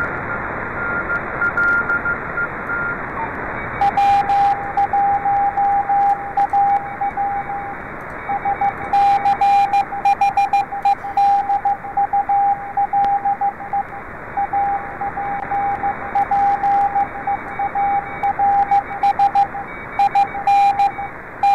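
Morse code (CW) received by a software-defined radio on the 20-metre band: a steady hiss of band noise with a fainter, higher Morse tone for the first few seconds, then a stronger, lower-pitched Morse signal keyed on and off from about four seconds in.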